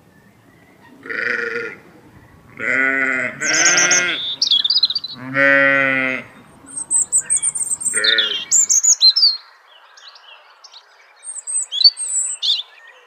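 About five bleats, the longest lasting about a second, in the first nine seconds. High bird chirps and trills join in from about the middle on and carry on to the end.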